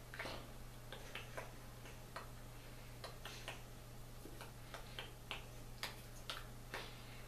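Irregular soft clicks and taps of hands and fingers striking each other and the clothing during brisk hand gestures, over a steady low hum.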